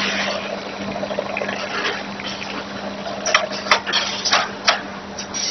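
Automatic bag-packing machine running with a steady hum and hiss, and several sharp clacks from its gripper arms and clamps a little past the middle as the filled bag is handled.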